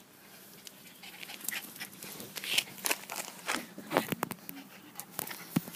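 Two small dogs play-fighting on grass, panting and scuffling in quick, irregular bursts that start about a second in.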